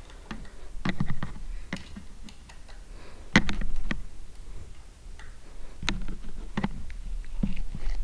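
Irregular sharp clicks and taps of an Allen key and metal fittings being worked at a motorcycle handguard's clamp, the loudest a little over three seconds in.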